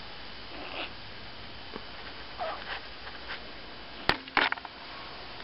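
A feral kitten moving about on straw, giving one short, faint mew about two and a half seconds in. About four seconds in there is a sharp knock followed by a brief rattle.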